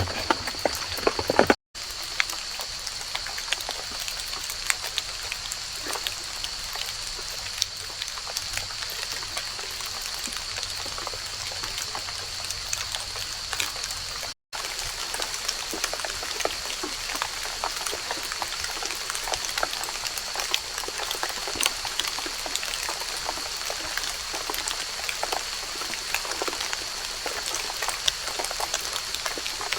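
Rain pattering on a forest floor of fallen leaves, a dense mix of many separate drop clicks. A steady high-pitched drone runs underneath, and the sound cuts out briefly twice.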